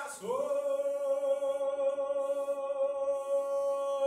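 A song playing: a singer slides up into one long note and holds it at a steady pitch.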